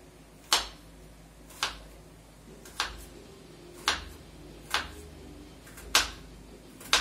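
Kitchen knife slicing an onion into strips on a wooden cutting board. Each cut ends in a sharp knock of the blade on the board, about once a second.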